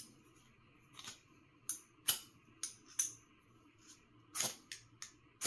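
A lighter clicked about eight times at irregular intervals, trying to ignite an alcohol stove, with a faint steady hum underneath.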